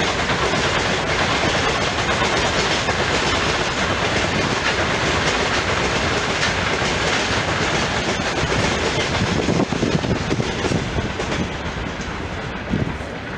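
Freight train of loaded open wagons rolling past, steel wheels clattering over the rail joints. The rumble eases off near the end as the last wagons go by.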